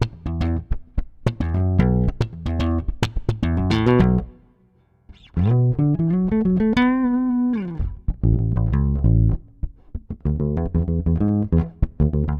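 Ibanez SR Mezzo 200 four-string electric bass played on its front (neck) pickup alone, giving a jazz-precision-like tone: quick runs of plucked notes. About four seconds in there is a short break, then a note slides up, is held with vibrato, and slides back down before the runs resume.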